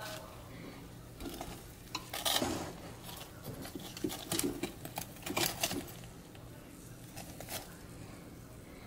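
Metal fork clinking and scraping against the air fryer basket and the chicken wings as they are turned, in several short bursts of clatter.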